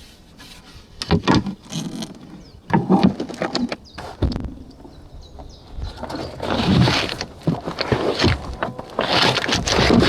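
Wood canvas canoe and gear being handled at the bank: irregular knocks and thumps, with two longer scraping rushes in the second half.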